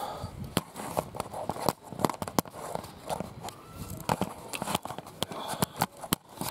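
Footsteps on a station platform, mixed with knocks and rubbing from a handheld camera being carried: irregular sharp clicks, about two or three a second.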